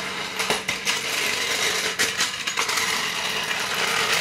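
Steel floor jack being pulled across an asphalt driveway, its wheels rolling and rattling, with sharp clanks about half a second and two seconds in, over a steady low hum.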